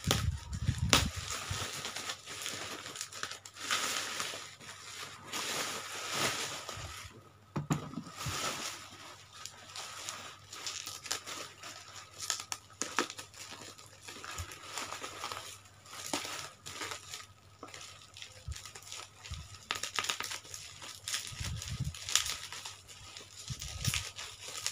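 Plastic packaging and bubble wrap crinkling and rustling in irregular bursts while it is cut open with scissors, with occasional sharp snips.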